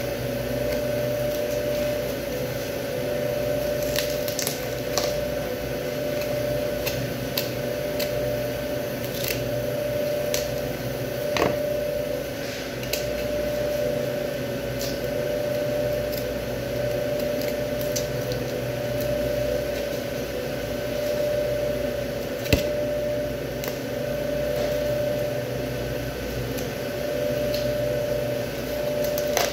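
Steady machine hum with a held mid-pitched tone, under scattered light clicks and taps of a knife working along beef rib bones on a plastic cutting board, with one sharper knock about two-thirds of the way in.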